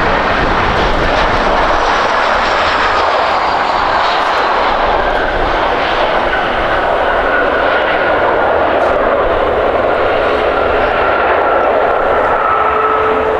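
Jet airliner's engines, loud and steady, with a high whine that slowly falls in pitch over the first few seconds as the aircraft passes.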